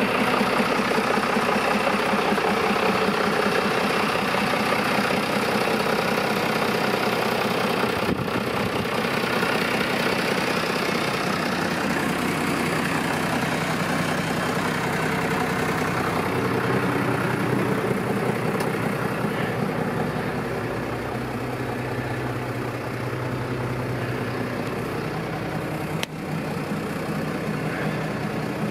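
John Deere 6910 tractor's six-cylinder diesel engine idling steadily, with one sharp knock near the end.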